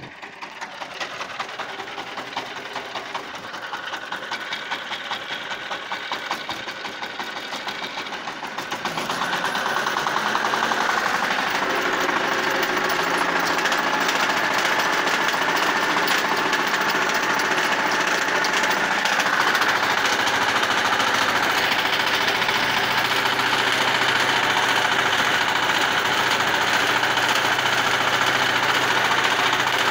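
Shifeng SF350L compact tractor's diesel engine running while it pulls a rotary tiller through the soil. It gets louder about nine seconds in and then runs steadily under load.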